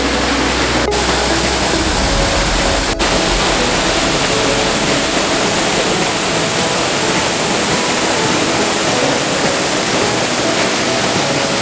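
Steady, loud rush of the Zhenetsky Huk waterfall, water falling freely about 15 m onto rocks, with a brief dropout about three seconds in.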